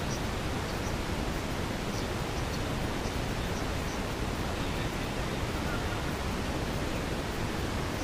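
Steady, even rushing hiss from the GoPro's poor audio track, with nothing clear heard over it.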